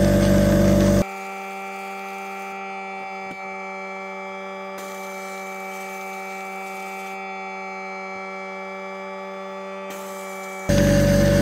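Air compressor running loudly. About a second in it cuts off abruptly to a steady electric hum, which lasts about nine seconds before the loud compressor noise returns just as abruptly near the end.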